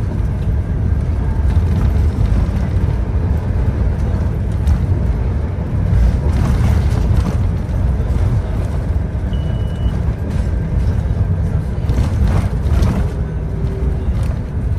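Cabin noise of a Scania K230UB OmniLink bus on the move: a steady low rumble from its five-cylinder diesel engine, with road noise and rattles. A brief high beep sounds about nine seconds in.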